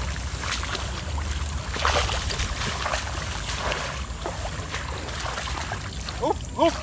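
Shallow marsh water and mud splashing and sloshing as a woven sieve is pushed and scooped through it among wet grass, with scattered short splashes and rustles over a steady low rumble.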